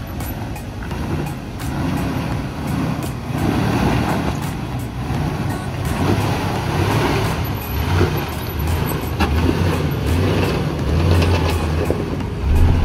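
Jeep Wrangler engine running at low speed as it crawls over a rutted, rocky dirt track, with scattered crunches and clicks from the tyres on rock and gravel. It grows louder near the end as the Jeep passes close by.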